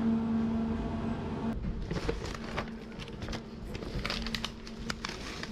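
A steady hum, then from about a second and a half in, irregular crinkling and rustling of plastic food packs and a shiny reusable shopping bag as groceries are packed into it.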